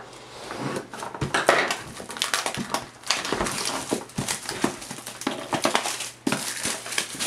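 Scissors cutting into plastic shrink-wrap on a cardboard box, then the film crinkling and crackling as it is torn and pulled off.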